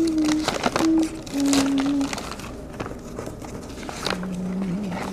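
A person humming a slow tune in long held notes, dropping to a lower note near the end, with scattered clicks and taps from things being handled.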